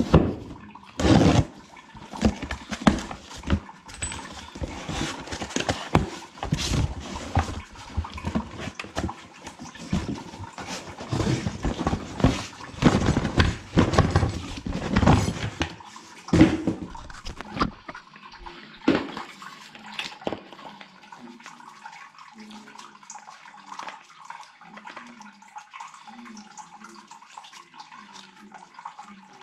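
Irregular knocking, clattering and splashing as a sump pump and its piping are handled in a water-filled pit. The clatter stops about 18 seconds in, leaving faint water sounds.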